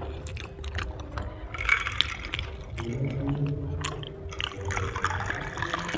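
Cola poured from a can into a glass mug, with the fizzing hiss of the soda building from about halfway in, among a few light clicks.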